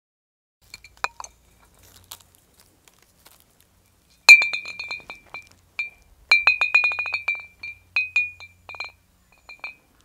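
Two hanging glass bottles wrapped in shiny tape knock against each other and ring with a clear, glassy clink: the sound this glass-bottle bird scarer makes to frighten birds. A few faint clinks come early, a loud one about four seconds in, then a quick run of clinks and scattered ones near the end.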